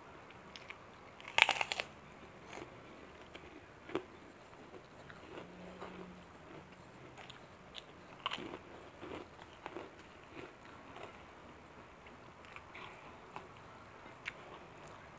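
Kerupuk crackers being bitten and chewed: a loud, crunchy bite about a second and a half in, then chewing with scattered smaller crunches.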